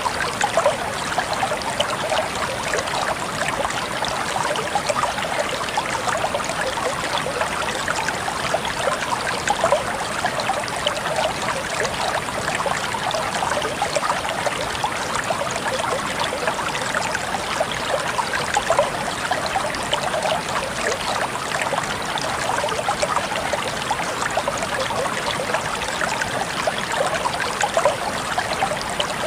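River water flowing in a steady babble with constant fine splashing and trickling.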